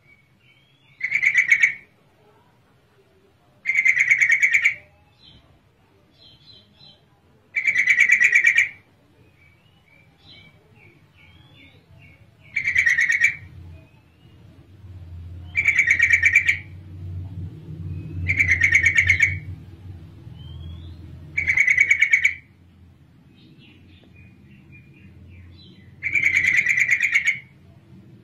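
Yellow-vented bulbul (trucukan) calling, offered by the uploader as a female's call: eight loud, short call phrases a few seconds apart, with softer chirps between them. A low rumble sits underneath in the middle stretch.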